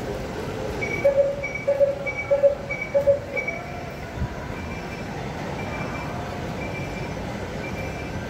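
A series of short electronic beeps, a little over half a second apart: loud for about four beeps starting a second in, then fainter ones continuing, over steady background noise.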